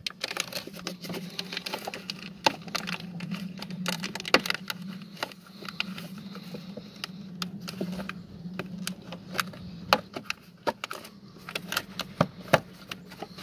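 Corrugated plastic pipes and their plastic clips in a car's engine bay being pushed and fitted into place by hand. There are scattered clicks, taps and rustles throughout, over a low steady hum.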